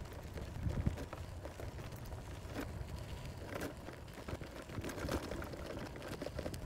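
Bicycle rolling over a dirt and gravel trail: a steady low rumble from the ride with many small crunches and rattles from the tyres and bike.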